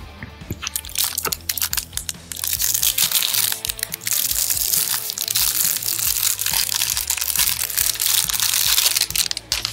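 Cellophane wrapper of a baseball card pack crinkling as it is torn open and pulled off the cards. A few scattered crackles come first, then a dense, continuous crinkling from about two seconds in until just before the end.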